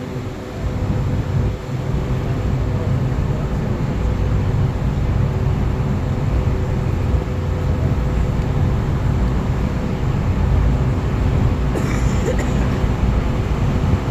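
A boat's engine running steadily under way: a deep, unbroken rumble with a constant hum.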